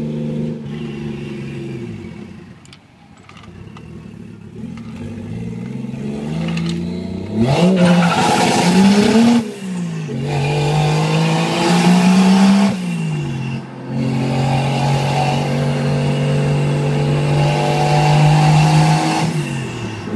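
Toyota Cressida's turbocharged 1JZ inline-six pulling through the gears under load. Revs climb hard, drop suddenly at a gear change about halfway through, and climb again. They then hold steady at a cruise and fall off near the end. The engine runs cleanly, its boost leaks and misfires fixed.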